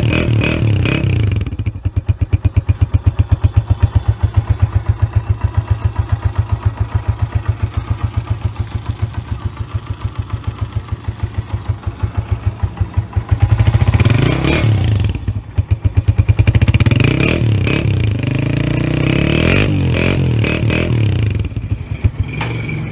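Honda CG125's single-cylinder four-stroke engine running through an aftermarket "Irani" silencer. It drops from a fast run to a slow idle with distinct, even exhaust pulses. It is revved briefly twice partway through, then runs faster again before easing off near the end.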